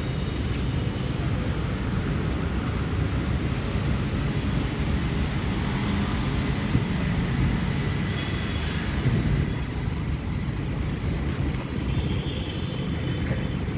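Steady low outdoor rumble of street background noise with no distinct events.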